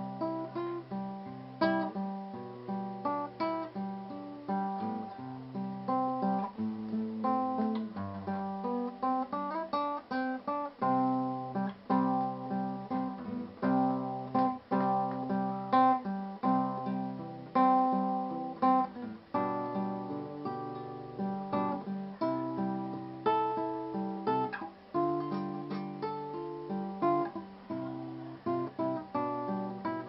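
Background music: acoustic guitar played with plucked notes and strummed chords.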